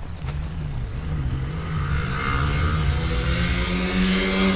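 Drag-racing lawnmower engine running near idle, its pitch wavering, then rising a little and growing louder toward the end.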